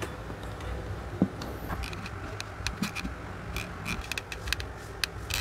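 Hard plastic parts of a motorcycle tail light assembly knocking and clicking as they are handled on a wooden table: one sharp knock a little over a second in, then a run of small sharp clicks.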